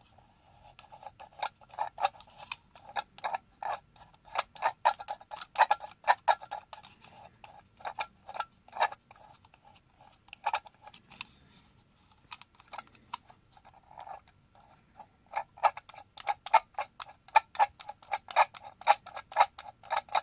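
Model steam locomotive's sound-effects tender giving an electronic chuff-chuff beat through its small speaker: quick, sharp puffs in a rhythm that thins out in the middle and comes faster and louder in the last few seconds.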